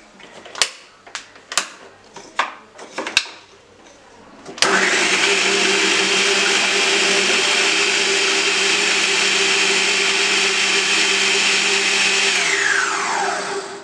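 Bajaj food processor chopping cauliflower florets into rice. A few sharp clicks come first. The motor then starts suddenly about four and a half seconds in and runs steadily. Near the end it is switched off, and its whine falls as the blades spin down.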